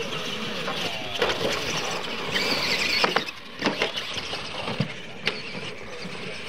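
Electric RC monster trucks of the retro Clod class racing on dirt: the motors and gearboxes give a steady whine that swells about halfway through. Several sharp knocks come as the trucks hit ramps and land.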